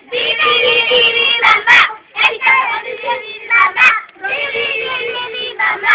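A group of young children singing together loudly, in phrases that break off briefly twice and start again.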